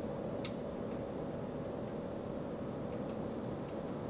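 Howard Miller grandfather clock's German-made nine-tube chime movement ticking, with one sharp, loud click about half a second in and fainter clicks later, over a steady hiss.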